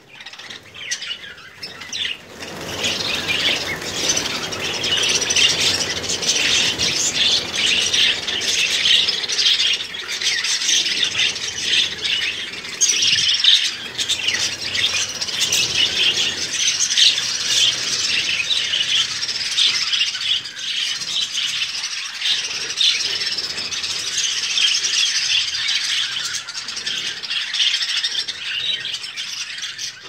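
A flock of budgerigars chattering and squawking together, a dense unbroken mass of overlapping warbles and chirps that swells up about two seconds in.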